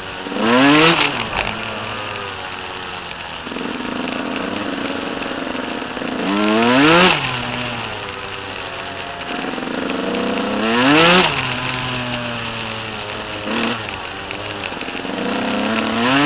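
Small dirt bike engine revving up three times in rising sweeps and easing off in between, with wind rushing over the microphone.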